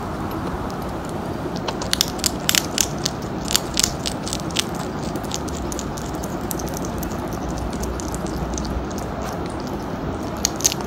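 African pygmy hedgehog chewing dry kibble from a ceramic dish: irregular small crunches come in clusters, about two seconds in and again near the end, over a steady low background hiss.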